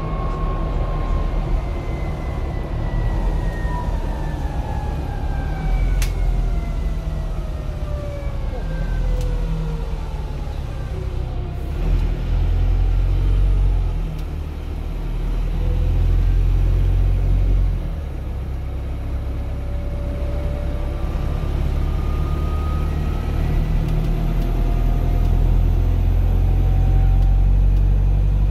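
Optare Metrodecker double-decker bus on the move, heard from the upper deck: a steady low drivetrain and road rumble, with a whine that glides down in pitch over the first ten seconds or so and a fainter whine rising near the end.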